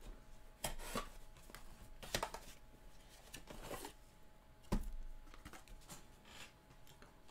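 Cardboard trading-card master box being opened and handled by hand: scattered scrapes and rustles of the lid and inner boxes, with a low thump a little under five seconds in as a box is set down on the table.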